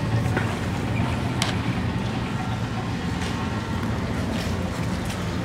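Steady low rumble of a moving vehicle, road and engine noise, with a sharp click about a second and a half in.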